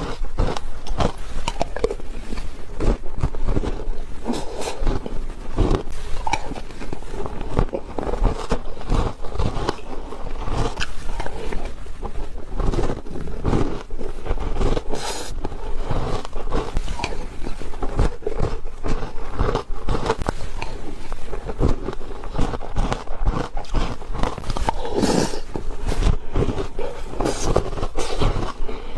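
Shaved ice being eaten close up: continuous quick crunching and chewing of the ice, with scraping.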